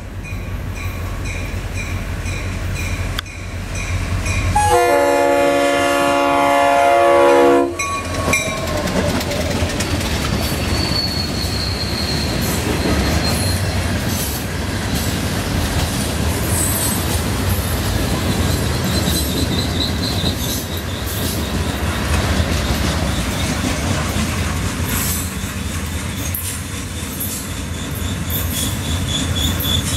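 A diesel freight locomotive approaches a grade crossing while the crossing bell dings steadily. About five seconds in, the locomotive blows one long chord on its horn, lasting about three seconds and louder than anything else. Then the freight cars roll past with a continuous rumble of wheels and rail clacks, and the wheels squeal at times in a high whine.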